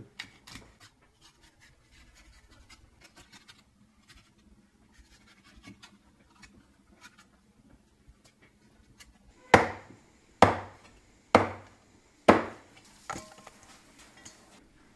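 Chinese cleaver cutting a fish on a thick wooden chopping block: several seconds of faint slicing and scraping, then four heavy chops about a second apart, and a lighter one after them.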